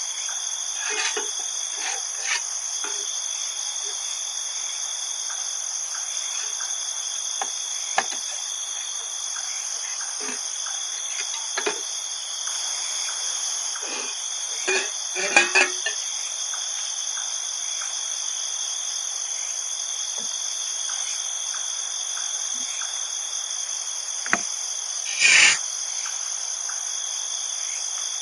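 Steady forest insect chorus of crickets, a continuous high-pitched trill in several fixed pitches. Scattered short knocks and rustles from camping gear being handled break through it, the loudest about 25 seconds in.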